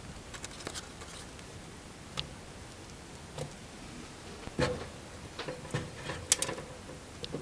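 Gerbils gnawing and crunching on pasta and scrabbling about: scattered sharp clicks and small knocks, with louder clusters about four and a half seconds and six seconds in.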